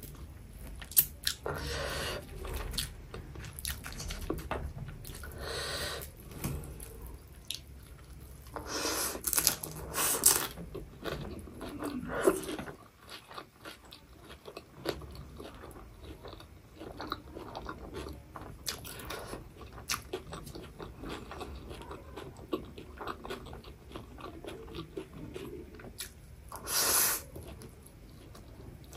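Close-up eating of instant noodles: wet chewing and mouth sounds throughout. There are louder slurps of noodles about nine and ten seconds in and again near the end.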